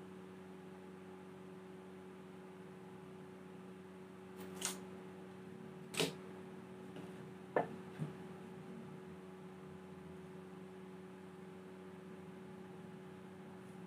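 Steady low electrical hum, with four short, light knocks and clicks in the middle as a tape measure, pencil and plywood pieces are handled on a wooden workbench.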